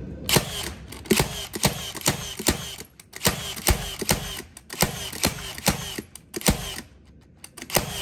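Metabo HPT NR3665DA 36V cordless metal connector nailer firing nail after nail into a 2x6 board, about three sharp shots a second, with brief pauses about three seconds in and near the end.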